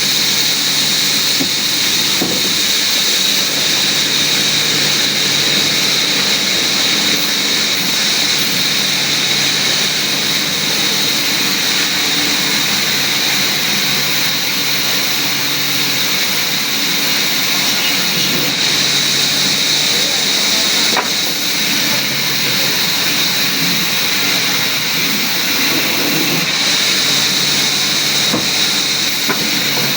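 Woodworking machinery, a power saw working wood, running steadily: a continuous loud hiss with a high, steady whine.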